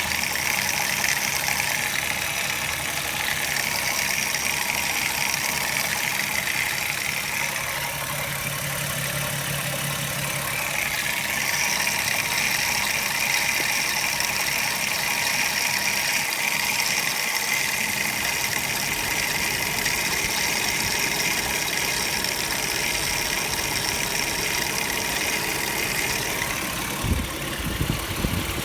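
Volkswagen 12-valve VR6 engine running at a steady idle with a rapid clicking, which the owner suspects is a bad water pump. A few low thumps come near the end.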